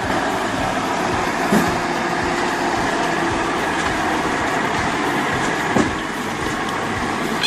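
Engine of a heavy timber-hauling vehicle running steadily, with two short knocks.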